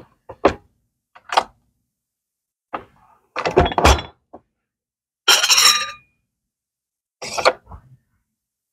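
A string of short, separate knocks and clatters with dead silence between them; the longest and loudest come about three and a half and five and a half seconds in.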